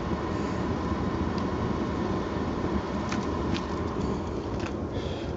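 Gas burners firing a brick soda kiln, a steady rushing rumble, with a few faint clicks.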